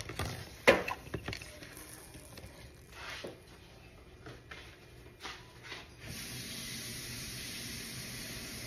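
Clatter and knocks of a saucepan being handled on an electric coil stove. About six seconds in, a steady watery hiss starts and runs on evenly.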